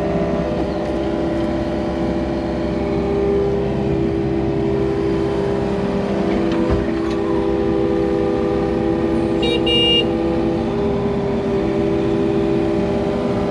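Excavator's engine and hydraulics running steadily, heard from inside the cab while the boom swings, with a constant hum. A short high beep sounds about two-thirds of the way through.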